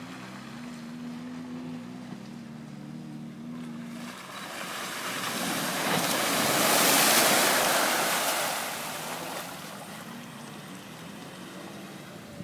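Land Rover Discovery 3 engine running steadily as it approaches, then a rush of muddy water splashing up around the vehicle as it drives through a deep pool. The water rush swells to its loudest about seven seconds in and fades away by about ten seconds, with the engine faint beneath it.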